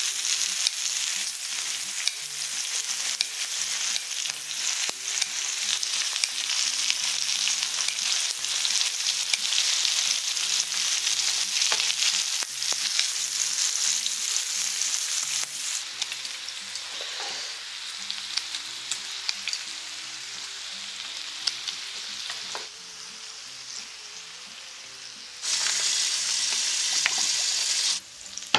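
Slices of pork belly sizzling in their fat on a hot griddle, with short clicks of metal tongs and scissors turning and cutting the meat. The sizzle is loudest in the first half, drops lower after that, and comes back loud for a couple of seconds near the end.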